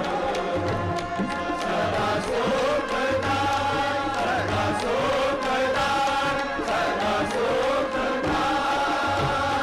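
Shabad kirtan: a large group of Sikh raagis singing a hymn together in long, gliding phrases, accompanied by bowed string instruments and tabla strokes.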